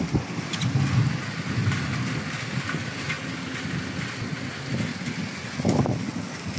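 Water running and splashing over wet, waterproof-coated concrete roof tiles: a steady rain-like wash, with a low rumble on the microphone.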